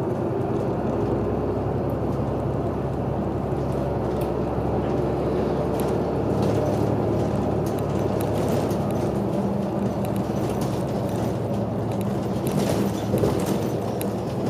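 City bus engine running steadily, heard from inside the cabin at the front, a low hum with a few light clicks and rattles near the end.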